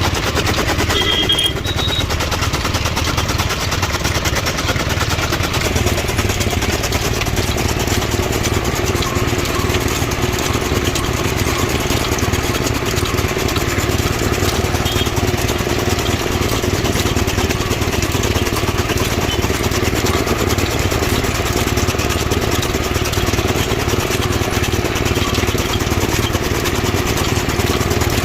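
Motorised chaff cutter running steadily while it chops fodder.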